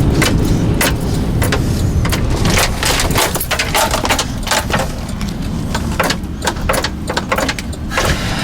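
Wind roaring and buffeting a car in the middle of a tornado, heard from inside the cabin, with a rapid, irregular pelting of sharp hits from wind-driven hail and debris striking the body and windshield.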